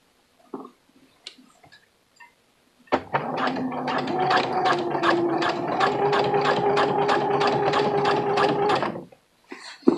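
Sewing machine stitching a zipper into a pair of pants. It starts about three seconds in, picks up speed slightly, runs steadily at about five stitches a second, and stops about nine seconds in. Light clicks from handling the fabric come before it starts.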